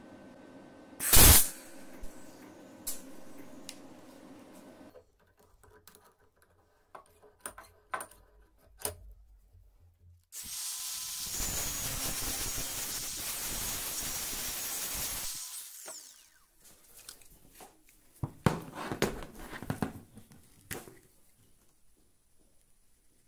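A small power tool's motor runs for about five seconds, with one loud sharp knock about a second in. Then an abrasive cutoff disc grinds through the steel drill-bit shanks held in a wrench for about five seconds, a steady hissing grind. Scattered clicks and scrapes of metal pieces follow near the end.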